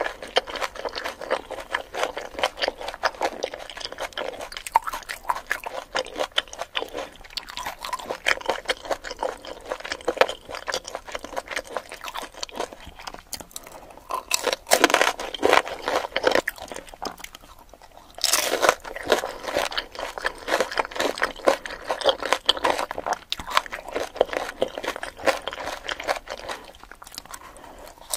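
Close-miked crunching and chewing of pani puri, the crisp fried hollow puri shells filled with potato, onion and chickpeas, bitten and chewed repeatedly. The crunching comes loudest in a spell about halfway through and again from about two-thirds of the way in.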